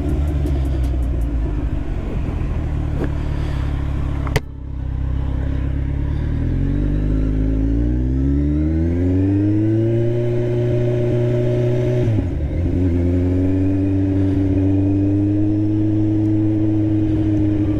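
Kawasaki Z1000's inline-four engine running through SC Project exhausts, not yet fitted with their connecting pipes, on the move: a steady note, one sharp click about four seconds in, then the pitch rises as the bike accelerates, dips briefly near twelve seconds as it shifts, and settles into a steady higher note.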